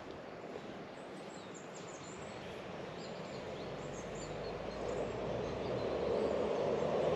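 Outdoor ambience: small birds chirping faintly over a steady background noise, which swells and grows louder through the second half.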